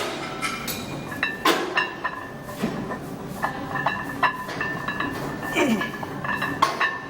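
Metal weight plates clinking and clanking against each other and against the bar, about a dozen knocks, several of them ringing briefly afterwards.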